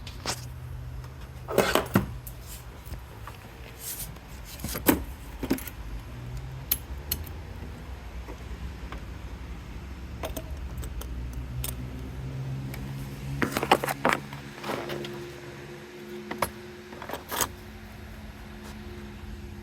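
Metal clinks and rattles of hand tools and compression-gauge fittings being handled at the engine, a few sharp clatters spread out, over a low steady hum.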